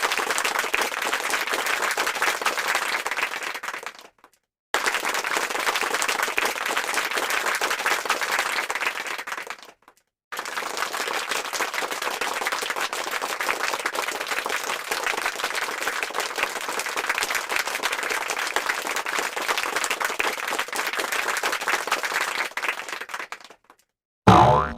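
Stock applause sound effects played one after another: three stretches of dense crowd clapping, each fading out and followed by a brief dead silence. Right at the end a short tonal sound effect starts.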